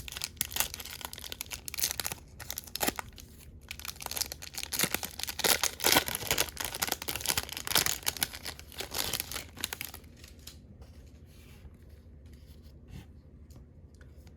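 Wrapper of a 2020 Bowman baseball card pack being torn open and crinkled: crackly tearing and rustling for about ten seconds. It then drops to faint rustles and soft ticks as the cards are handled.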